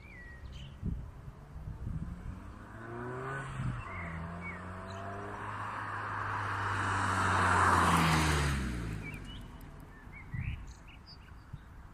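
Ford Fiesta Mk7 with a Wolf Racing aftermarket sport exhaust driving past: a steady engine note and tyre noise grow louder as it approaches, peak about eight seconds in, then drop in pitch and fade as it moves away.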